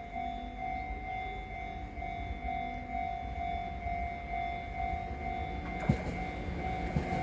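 Electric multiple-unit passenger train approaching: a low rumble and a steady, slightly pulsing whine, growing louder, with the first clicks of wheels over rail joints about six seconds in.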